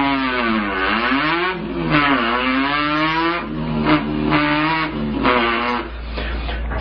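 A person imitating a revving import car engine with his voice. The pitch sweeps down and back up several times, like revs and gear changes, then holds steadier notes that step up and drop.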